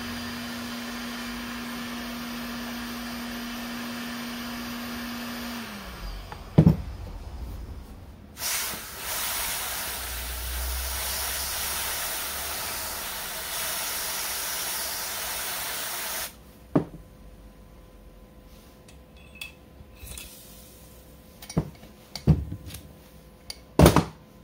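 A heat gun runs with a steady hum, then is switched off and winds down about six seconds in, followed by a loud knock. An aerosol spray can then hisses loudly for about eight seconds as it is sprayed onto the crankshaft bearing, throwing up a cloud of cold vapour. A few sharp knocks follow as the parts are handled.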